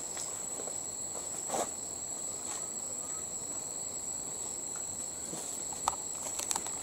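Steady high-pitched drone of insects, with a couple of brief soft rustles about a second and a half in and again near the end.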